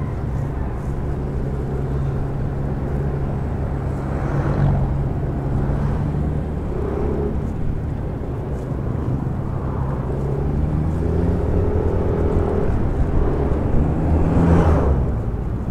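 Yamaha NMAX scooter running at a steady cruise while being ridden, its engine a steady low drone under rushing wind and road noise. The rush swells briefly about four seconds in and again near the end.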